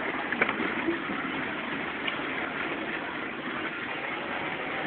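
Off-road vehicle's engine running steadily as it drives along a rough forest track, heard from inside the cab, with a couple of faint knocks.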